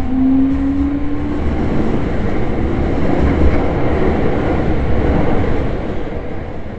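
Train running, with a single whining tone rising slightly in pitch over the first second or so, then steady running noise and low rumble, fading away near the end.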